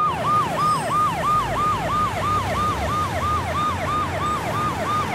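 Emergency vehicle siren in a fast yelp: each cycle jumps up in pitch and slides back down, about three times a second, over a low traffic rumble.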